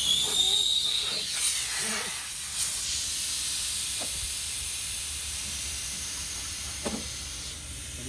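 Refrigerant gas hissing out under pressure through the gauge valve and charging-hose fitting of a milk chiller's refrigeration unit, with a brief whistle at the start. The hiss is loud at first and slowly dies down over several seconds, with a couple of faint knocks from handling the fittings.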